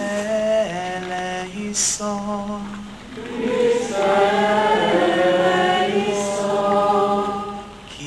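Voices singing a slow devotional chant in long held notes, moving from one pitch to the next, with a steady low note underneath.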